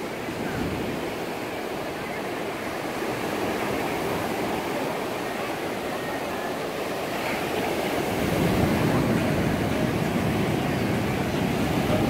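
Small surf waves breaking and washing up a sandy beach in a steady rush of foam, which swells louder about eight seconds in.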